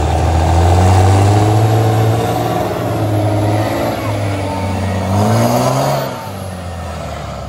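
Big diesel truck engines running at full throttle under load in a truck tug-of-war pull, the pitch climbing briefly about five seconds in before the power drops off sharply about six seconds in.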